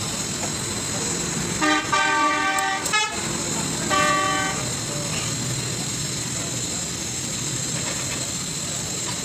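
A vehicle horn honking twice over steady street traffic noise: a long honk of over a second, then a short one.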